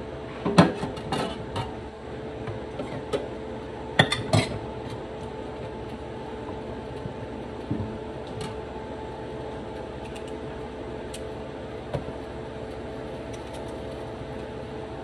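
Sporadic knocks and clatter of kitchen items on a cutting board and plate, in quick clusters near the start and again about four seconds in, with single knocks later, over a steady background hum.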